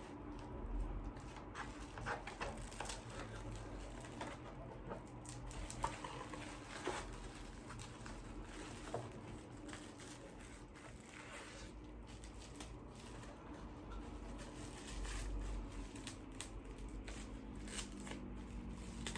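A package being handled and opened by hand: scattered rustling, crinkling and tearing of wrapping, with small knocks and clicks.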